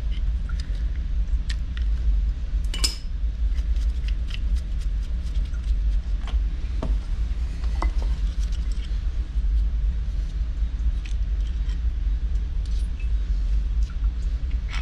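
Parts of a Watts 009 reduced-pressure backflow preventer's relief valve being handled during disassembly: scattered light clicks and clinks, a few sharper ones, over a steady low rumble.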